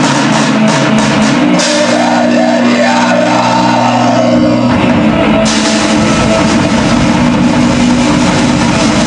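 Lo-fi black metal demo recording with drums and guitars. The texture changes about a second and a half in, and a dense low rumble takes over about halfway through.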